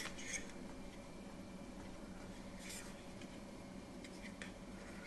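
Faint handling noise: fingers rubbing and lightly clicking against the small plastic body of a model locomotive, a few soft scrapes about a second apart, over a steady low hum.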